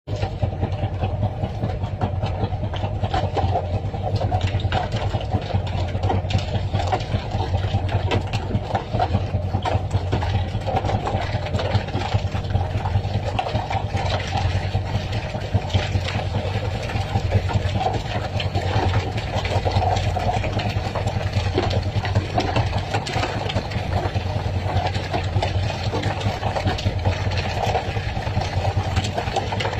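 Fishing boat's engine running steadily, with frequent irregular knocks and slaps of skipjack tuna landing and flapping on the wooden deck.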